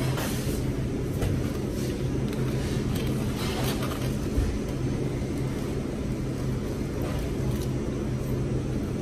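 A steady low machine hum that holds one pitch throughout, with a few faint rustles and clicks of eating over it.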